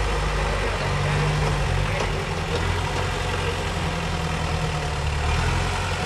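Dodge D50 rock crawler's engine running at low revs under load as the truck crawls over boulders, its note shifting up and down a little with the throttle.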